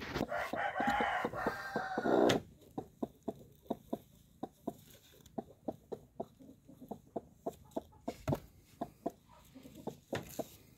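A broody hen gives a loud, drawn-out squawk lasting about two seconds. It is followed by a steady run of short clucks, about three a second, as she sits over the kittens she is brooding.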